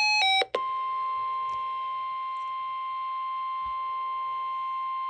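An electronic two-note beep pattern alternating quickly ends within the first half second. Right after it an Emergency Alert System attention tone starts: one steady, unwavering high tone, the alarm that opens a NOAA Weather Radio-style warning broadcast.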